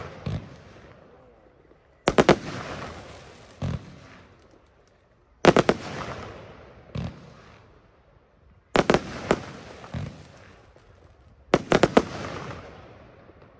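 Röder 'Jubelbox' firework battery firing four volleys about three seconds apart. Each volley is a quick cluster of sharp bangs, then a fading hiss, and a single lone bang about a second and a half later.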